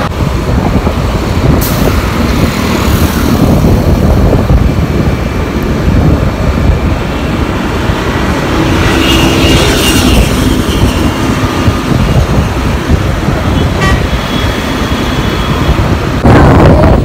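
Wind buffeting the microphone and passing road traffic, heard from a moving scooter, with a vehicle horn sounding about halfway through and briefly again later. The wind noise gets louder near the end.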